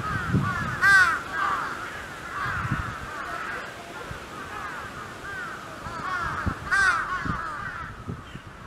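A group of birds calling, many short overlapping calls rising and falling in pitch, in a steady chorus that swells about a second in and again near the end.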